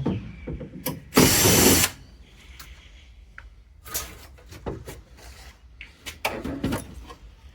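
A power drill/driver runs in one short burst, under a second long, backing out a screw, followed by scattered clicks and knocks of metal parts being handled.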